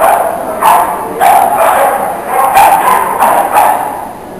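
A dog barking in a rapid run of short, sharp barks, about two a second.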